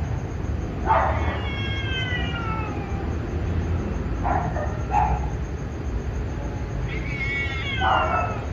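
Cats caterwauling in a fight: two long drawn-out yowls that slide down in pitch, about a second in and again near the end, with two short sharp cries between them.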